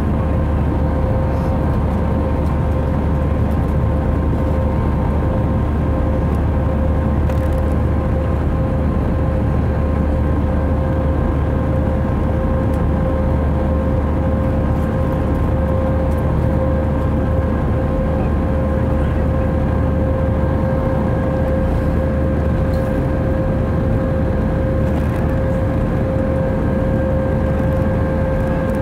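Jet airliner's turbofan engines running steadily at climb power after takeoff, heard inside the cabin over the wing: a deep rumble with a steady whine above it.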